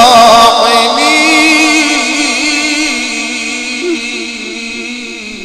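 A male Quran reciter chanting in tajweed style, holding one long drawn-out ornamented note with a wavering pitch that slowly fades.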